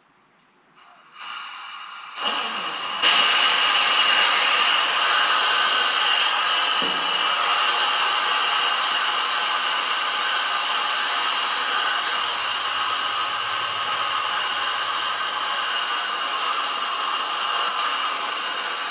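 High-pressure air hissing out of a Hatsan Flash PCP air rifle's air cylinder through its opened bleed screw as the cylinder is degassed. The hiss starts faint about a second in, jumps louder twice as the screw is opened further, then holds steady and eases only slightly as the pressure drops.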